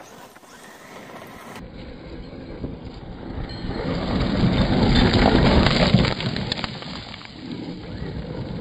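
Traxxas UDR radio-controlled truck driving on loose gravel, its tyres crunching and spraying stones. The sound builds as the truck slides past close about four seconds in, is loudest around five to six seconds, then fades.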